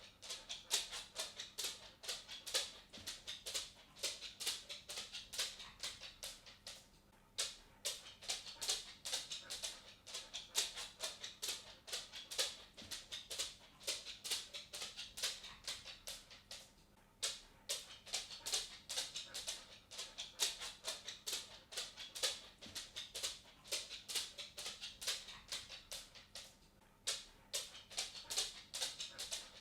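A cat walking: a quick, steady stream of light clicking footfalls from its paws and claws, with a brief lull about every ten seconds.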